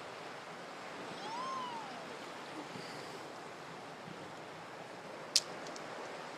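Steady wash of ocean surf with some wind noise. A short whistle-like tone rises and falls about a second in, and a single sharp click about five seconds in is the loudest moment.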